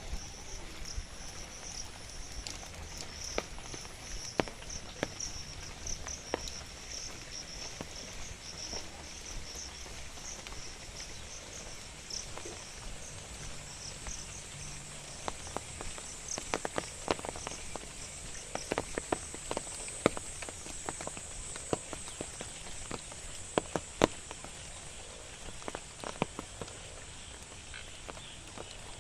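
Outdoor ambience with a high, pulsing insect trill that fades about halfway through, and scattered sharp clicks and taps that come thicker in the second half.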